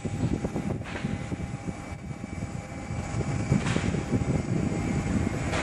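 Gusting wind buffeting the microphone over a steady high-pitched whine from a parked Airbus A320.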